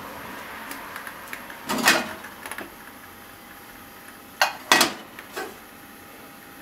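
Frying pan clattering against the metal grate of a gas stove as it is lifted and set back down: a clatter about two seconds in, then two sharp knocks and a lighter one around five seconds in.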